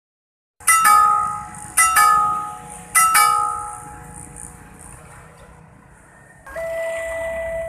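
Railway level-crossing warning bell (genta) on its pillar striking three quick double strokes about a second apart, each ringing and fading. About six and a half seconds in, a steady electronic crossing alarm tone starts.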